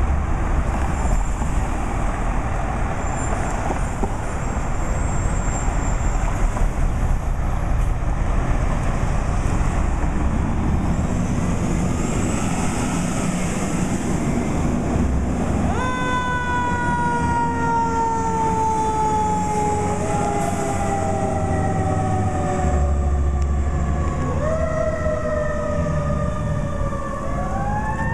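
Fire apparatus sirens starting up about halfway through, as long tones that slide slowly down in pitch, overlapping one another, with rising wails near the end. Before that, only steady engine and street traffic noise.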